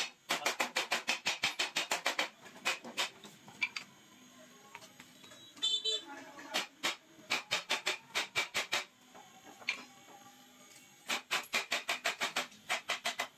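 Quick runs of light hammer taps on metal, about six a second, with short pauses between runs: a small hammer closing the clips that hold copper tubing onto a refrigerator's evaporator plate.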